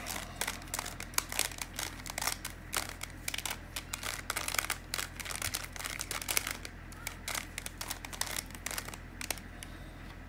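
Plastic Bermuda Uranus twisty-puzzle cube being turned quickly in the hands, its layers clicking and clacking in rapid irregular runs. These are the final turns of the algorithm that solves it, and the clicking stops near the end.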